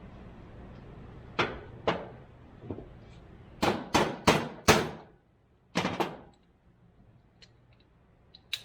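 A series of sharp knocks, about nine in all, with four loud ones in quick succession about four seconds in. A steady background noise cuts off about five seconds in, leaving only faint ticks.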